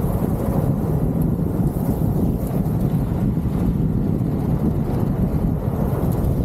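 Wind buffeting a roof-mounted camera's microphone over the steady low rumble of a 4x4 driving on a sandy dirt track.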